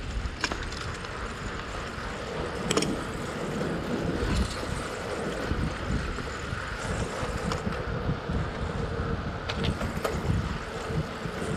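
Bicycle rolling along an asphalt street, heard from a handlebar-mounted camera: steady tyre and road noise with a gusting low rumble of wind on the microphone, and a few sharp clicks and rattles from the bike.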